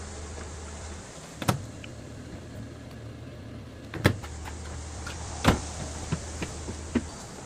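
A small electric motor humming in two spells, with sharp mechanical knocks about one and a half, four and five and a half seconds in, and a few lighter clicks near the end.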